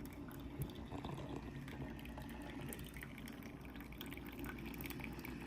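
Single-serve drip coffee maker brewing: a faint steady hum with small drips and trickles of liquid.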